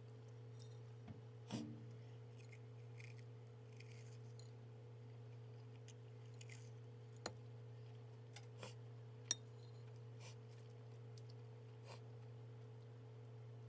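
Metal fork tapping and scraping on a ceramic plate while cutting through burnt, crusty bread, a handful of light clicks and knocks with a sharper click about nine seconds in. A steady low hum runs underneath.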